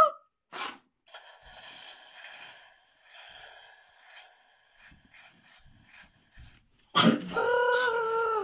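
A person's high-pitched, drawn-out play voice for a toy character, starting near the end and the loudest sound. Before it, a short breathy burst of voice about half a second in and a few faint clicks of plastic toy pieces being handled.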